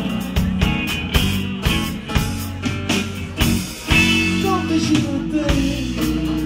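Live band playing: electric guitars over bass guitar and a drum kit, with regular drum hits.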